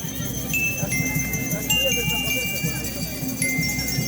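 School rhythm band playing: metal bell lyres ring a slow melody of single high notes, about one a second, over steady drumming.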